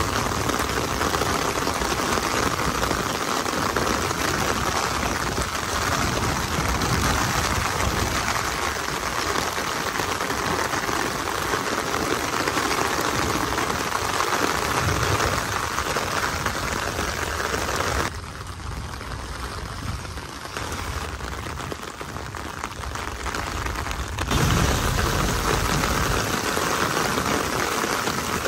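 Heavy rain falling on a wet street and puddles, a steady hiss. About eighteen seconds in it turns quieter and duller for about six seconds, then comes back at full strength.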